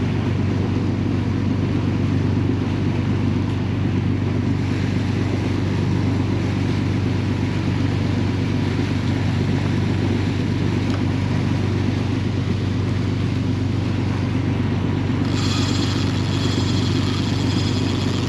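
Inboard engines of a 31-foot Bertram sportfishing boat running steadily at trolling speed, a constant low drone. About three seconds before the end, a higher hiss with a few thin steady tones joins in.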